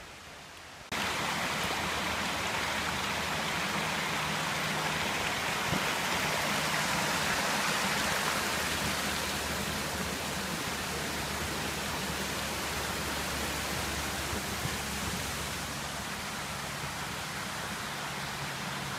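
Small forest creek running over mossy rocks: a steady rush of water that starts suddenly about a second in.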